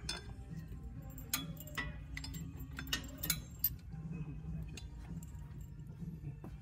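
Irregular metallic clicks and clinks of hand tools and bolts against the transmission crossmember and mount, over a steady low hum.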